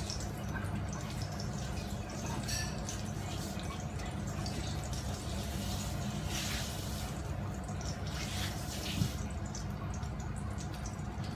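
Water dripping and splashing at a kitchen sink as shimeji mushrooms are rinsed by hand, with a few brief louder splashes.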